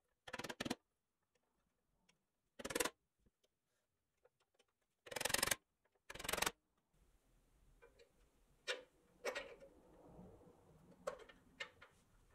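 A white stick rubs in four short scraping strokes against the red-painted pressed-steel body of a 1950s Tonka toy truck. Then come a handful of light clicks and taps as the metal body and the plastic wheels are handled.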